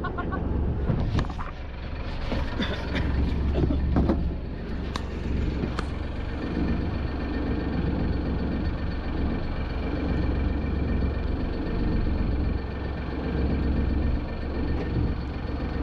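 Fishing boat's engine running steadily, a low drone, with a few knocks and clatter on board in the first several seconds.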